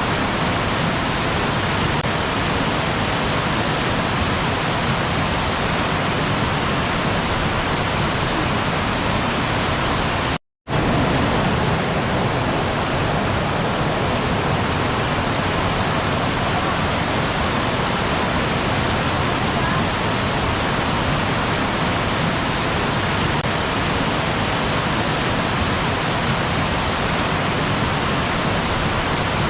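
Waterfall: a steady, full rush of falling water. It cuts out to silence for a moment about a third of the way in, then resumes at once.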